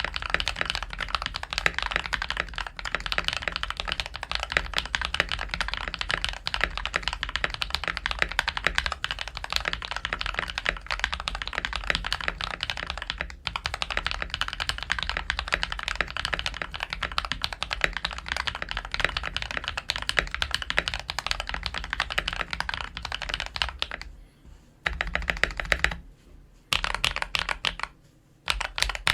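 Fast typing on a Drevo Calibur V2 mechanical keyboard fitted with PBT double-shot keycaps: a dense, continuous clatter of keystrokes, broken by a few short pauses near the end.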